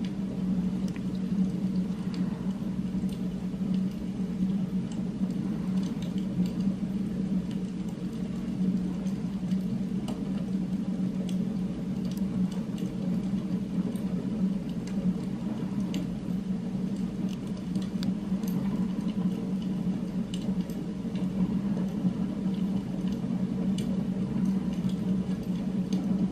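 Steady, even low hum from an ambient background track, with faint scattered ticks over it.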